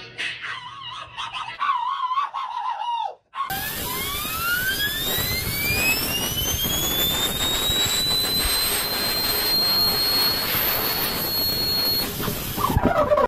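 A cartoon cat's scream played through a tablet's speaker, a wavering yell that drops away about three seconds in. Then a compressed-air blow gun hisses as it spins a steel ball bearing up to speed, the bearing's whine rising steadily in pitch for several seconds, holding high, and cutting off near the end.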